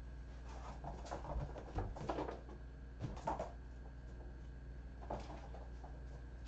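Kittens moving about the room: a handful of soft knocks and scuffs, mostly in the first three and a half seconds with one more near five seconds, over a steady low hum.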